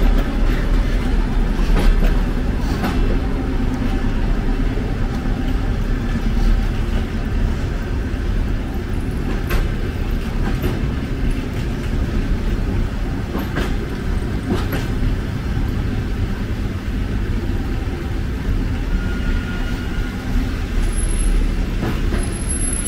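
Passenger railway cars rolling slowly along the track: a steady rumble broken by a few scattered clicks and knocks.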